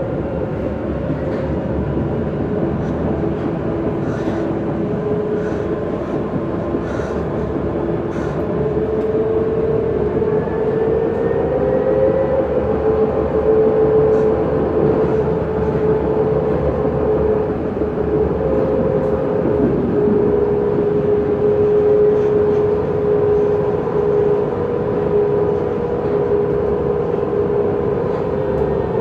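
Ride noise inside a moving electric passenger train: a steady rumble with a motor whine that drifts slightly up and down in pitch, and a few faint light ticks.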